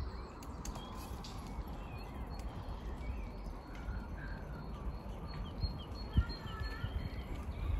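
Small songbirds chirping and trilling in the trees over a steady low rumble of wind and the moving bicycle on the microphone, with a single knock about six seconds in.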